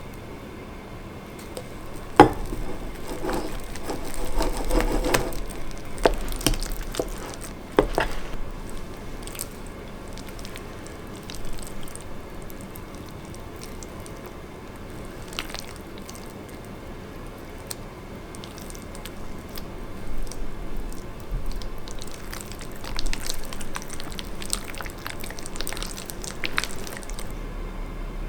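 Slime being squished and worked by hand: irregular wet clicks, pops and squelches, in two busy stretches, over a low steady hum.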